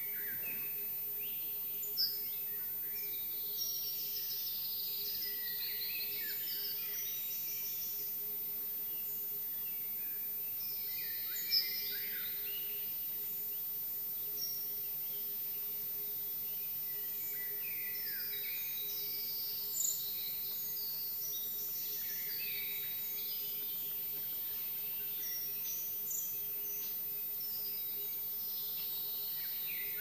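Dawn chorus of several songbirds, with short overlapping song phrases and trills throughout and a few louder notes standing out. A faint steady low hum lies underneath.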